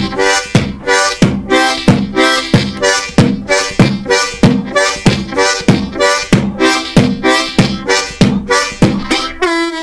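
Diatonic harmonica played in a steady rhythm with beatboxed kick-drum puffs, about two beats a second, the chords alternating with the kicks as the breath switches direction. It ends on a longer held note that bends near the end.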